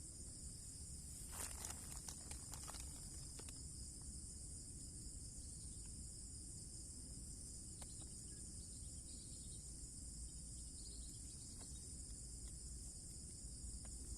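Steady, high-pitched chorus of insects such as crickets, with a few light clicks about one to three seconds in.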